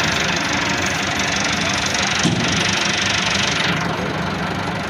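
Tractor diesel engine running steadily, with one clunk about two seconds in and a hiss over it that drops away near the end.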